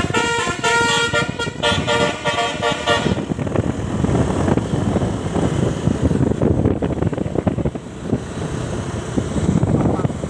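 Bus's multi-note Basuri 'telolet' horn playing a quick melody of short tones, stopping about three seconds in. Engine and road noise follow as the bus goes by.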